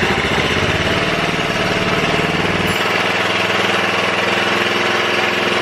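Small engine of a homemade minibike running steadily with an even pulsing beat, just after being started, its beat shifting slightly about halfway through.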